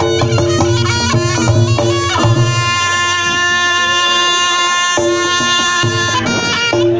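Reyog Ponorogo gamelan accompaniment. Drum strokes and gong-chime beats in the opening seconds give way, about two seconds in, to a reed shawm (slompret) holding one long shrill note while the drums drop out, and the drums return near the end.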